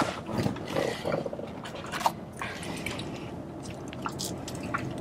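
Close-up eating sounds: a crunchy battered corn dog being chewed, with sipping through a drinking straw and small mouth clicks.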